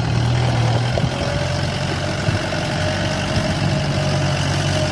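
A steady low motor hum, like an idling engine, with a hiss over it. A faint steady whine joins about a second in.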